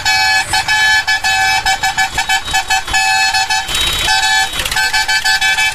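A vehicle horn honking over and over in a rapid string of short toots mixed with a few longer blasts, one steady pitch throughout, pausing briefly a little before the four-second mark.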